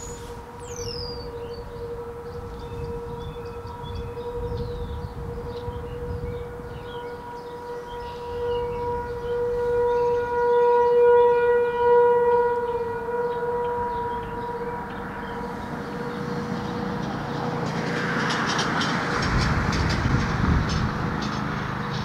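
RSH-10 "Thunderbeam" rotating siren sounding a steady alert tone, one unchanging pitch that swells to its loudest about halfway through and then fades as the horn turns. Near the end a rumbling passing vehicle builds up under the tone.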